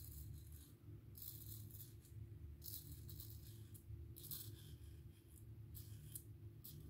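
Merkur Futur adjustable safety razor strokes scraping through lathered stubble: a series of faint, short, crackly scratches, each lasting under a second, about one every second or two.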